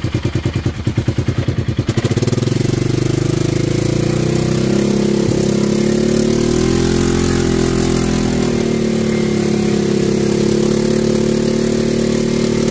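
Off-road vehicle's engine, first at a slow, evenly pulsing idle, then about two seconds in revving up and running steadily as it drives along a dirt trail. Its pitch rises, holds, dips briefly past the middle and then settles.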